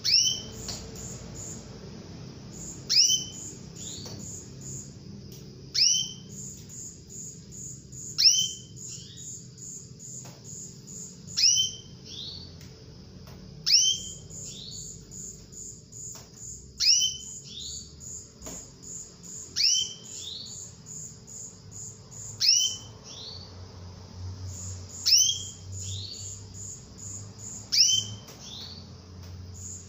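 Female domestic canary calling to attract a male: about eleven quick, high notes that sweep sharply downward, one every two and a half to three seconds, with fast runs of short high chips between them, over a faint steady low hum.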